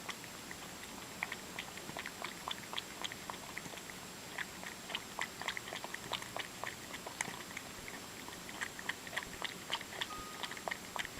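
A cat chewing its food: an irregular run of small, sharp clicks, several a second.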